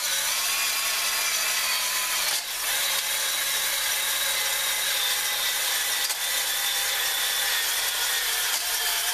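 Drill-driven stone cylinder hone spinning in an oiled cylinder bore of a 2.5L four-cylinder engine block, a steady hissing grind over the drill's motor whine. About two and a half seconds in it breaks off briefly, then runs on at a slightly lower pitch.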